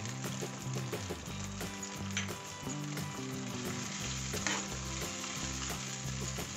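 Sliced brinjal with onion, tomato and added water sizzling and simmering in a nonstick kadai while a steel spoon stirs it through.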